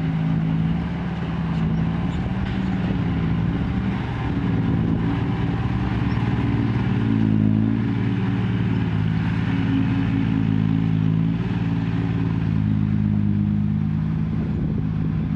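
Diesel engine of a six-wheel dump truck running steadily as the truck drives across rough ground loaded with soil, its note shifting a little with the revs.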